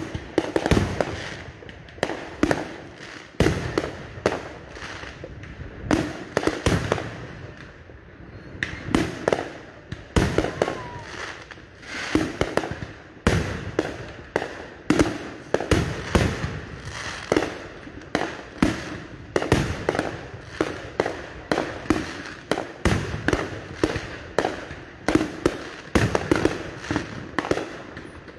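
Many distant fireworks going off one after another, a steady irregular barrage of bangs and pops, often several a second, each with an echoing tail.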